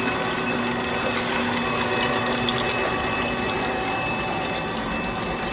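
Slow juicer running steadily with a motor hum as its auger presses watermelon pieces pushed down the feed chute.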